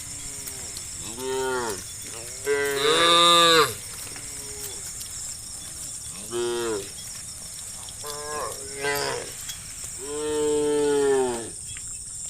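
Cows mooing, about six separate calls, each rising and falling in pitch; the loudest comes about three seconds in and the longest near the end. A steady high buzz runs underneath.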